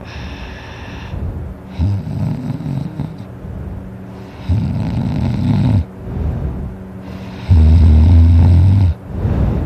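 A person snoring loudly in their sleep: three long snores about three seconds apart, the last the loudest.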